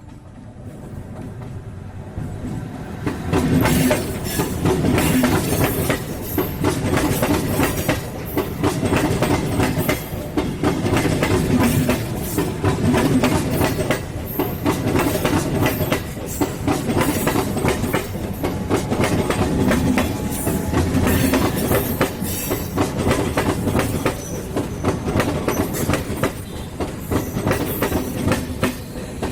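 A train running past close by, its wheels clattering in a rhythm over the rail joints. It builds over the first few seconds as it approaches, then stays loud.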